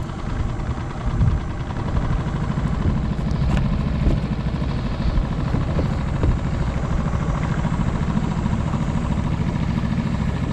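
Small 6 hp outboard motor running steadily in gear, pushing the micro skiff along. The motor is new and still being broken in.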